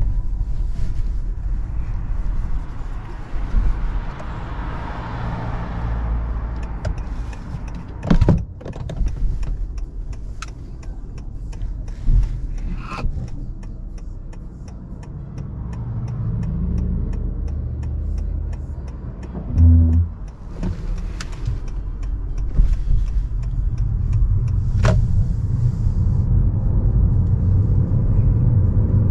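Honda Accord cabin road noise while driving: a steady low rumble of tyres and road, with a few sharp knocks and clicks from bumps along the way.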